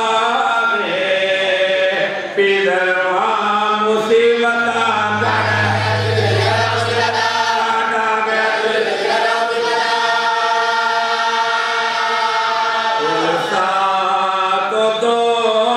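A group of men chanting a noha, a Shia mourning lament, in unison through microphones, with long held lines and no instruments.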